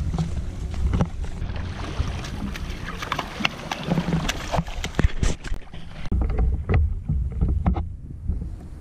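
Wind rumbling on a handheld action camera's microphone, with many scattered clicks and knocks from the camera being handled.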